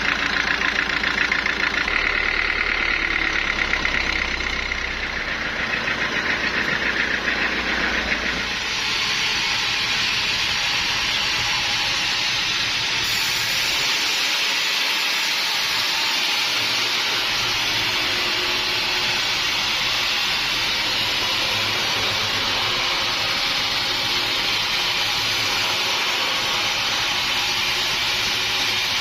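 An engine running with a steady pulsing rhythm. About eight seconds in it gives way to a loud, steady hissing machine noise that carries on unchanged.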